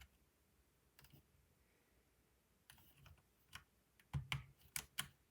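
Plastic keycaps being pushed onto the brown switches of a Ducky mechanical keyboard. There are a few short, sharp clacks about a second in and around the three-second mark, then a quick run of clacks near the end as a cap seats and the key bottoms out.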